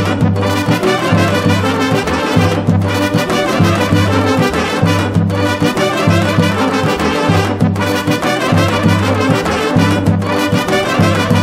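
Upbeat brass-led background music with a steady, pulsing beat, with short breaks about every two and a half seconds.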